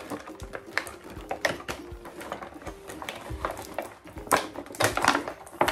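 Clear plastic packaging crinkling and crackling in irregular bursts as it is handled, with a few sharper crackles near the end.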